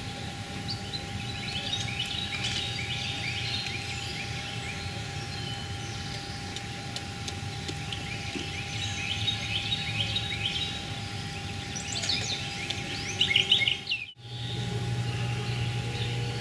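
Small songbirds singing in the background, several phrases of fast trills of short high notes, over a steady outdoor hiss with a faint constant hum. The sound cuts out for a moment near the end.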